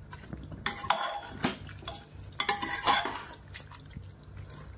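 Steel spoon scraping and clinking against the inside of a pressure cooker while stirring thick frying beef keema, in two bouts: one under a second in, and another about two and a half seconds in.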